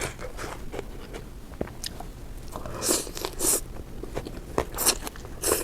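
A person chewing and biting crunchy food in the mouth, with several loud crunches in the second half.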